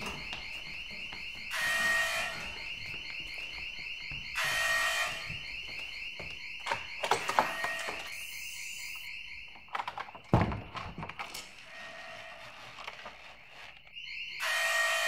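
Classroom drill alarm sounding: a continuous, rapidly pulsing high tone, with a louder horn-like blast about two seconds in, again near five seconds and at the end. A few sharp knocks and a thud break in around the middle.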